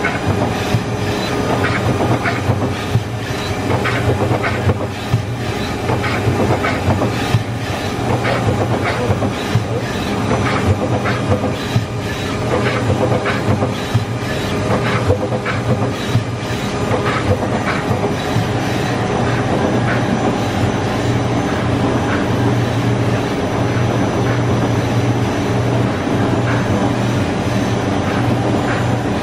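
Takamax X 10i CNC lathe running: a steady low machine hum, with many irregular sharp clicks and rattles over roughly the first half.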